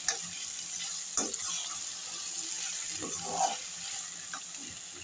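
Diced capsicum, tomato and onion sizzling in hot oil in a kadai, with a steady hiss. A steel spatula scrapes and knocks against the pan a few times as the vegetables are stirred.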